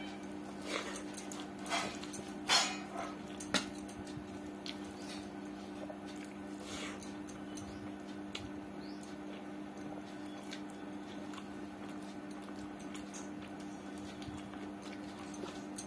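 Eating sounds of khichdi eaten by hand: short wet mouth smacks and chewing, bunched in the first few seconds with a few fainter ones later, over a steady low hum.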